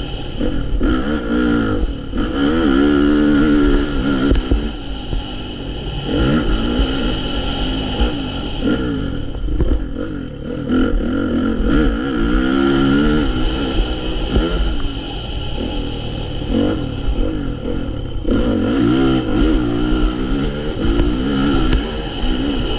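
Motocross bike engine heard from onboard, revving up and dropping back several times as the rider accelerates out of bends and backs off. A steady low rumble runs underneath.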